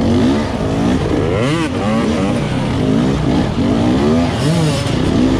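Several dirt bike engines close together, revving up and down in short throttle bursts as they work over rocks, their notes overlapping.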